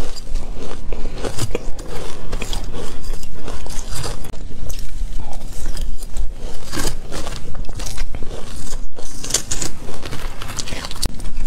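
Close-miked crunching and chewing of shaved ice with matcha and a crispy topping, in irregular crackling bites, with a metal spoon scraping through the ice in the bowl.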